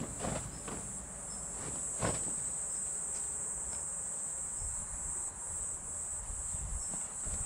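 Insects chirring in a steady, high, even trill, with a single knock about two seconds in.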